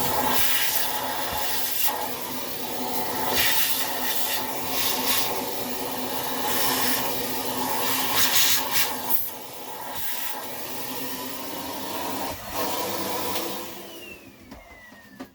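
Numatic Hetty canister vacuum cleaner running, its suction rush swelling and dipping as the nozzle is worked over the dusty floppy-drive mechanism. Switched off near the end, the motor's whine falling as it spins down.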